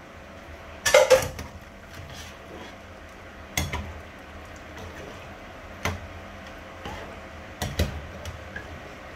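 A metal slotted spoon clatters and knocks against a cooking pan while a stew is stirred. There is a cluster of clinks about a second in, then a few single knocks spaced a couple of seconds apart, over a steady low hum.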